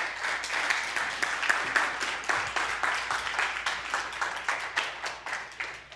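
Audience applauding: many hands clapping in a dense, even patter that tapers off near the end.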